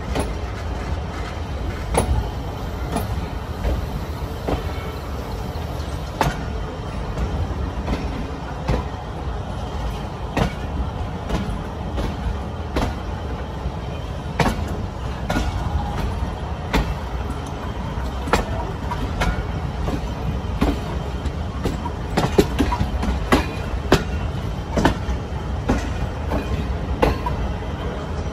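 Passenger train rolling on the rails, its wheels clicking sharply and irregularly over rail joints and points above a steady low rumble.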